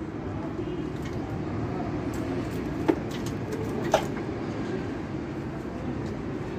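Toyota Corolla XLi's four-cylinder diesel engine idling with a steady, rough rumble, and two sharp clicks about a second apart near the middle.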